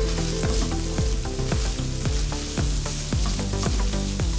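Carrots, chicken, onion and garlic sizzling in a frying pan as they are sautéed and stirred.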